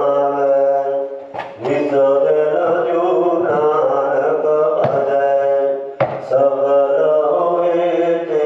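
Gurbani, Sikh scripture, chanted by a voice in a steady sing-song recitation of long, drawn-out notes, with three short clicks along the way.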